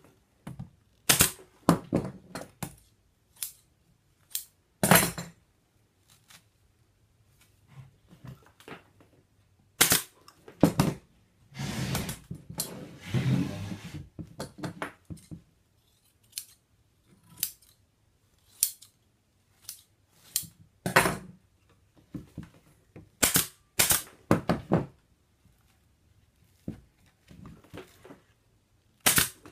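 Upholstery scissors snipping through polyester batting, with sharp clicks that fit a pneumatic staple gun tacking the batting down. The snips and clicks come irregularly throughout, with a longer rustle of batting being handled about halfway through.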